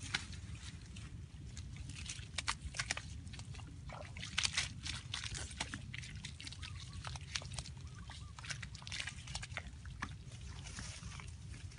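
Leafy plants being pulled up and thrown and wet mud being worked by hand: irregular rustling, snapping and squelching, busiest about four to five seconds in, over a steady low rumble.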